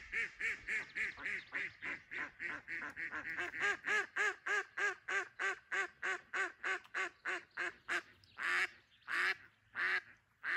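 Live decoy hen duck quacking in a long rapid run of about four calls a second, then a few slower, louder quacks near the end. This is the decoy's calling to draw in drakes.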